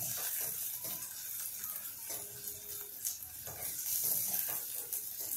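Onion and green chilli chutney sizzling in oil in an aluminium kadhai, with a wooden spatula stirring and scraping against the pan in repeated strokes.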